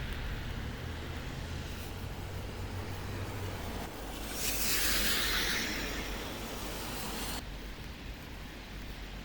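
Street traffic on a rain-wet road: a low engine hum for the first few seconds, then the loud hiss of tyres on wet tarmac swelling as a vehicle passes about halfway through, cutting off abruptly.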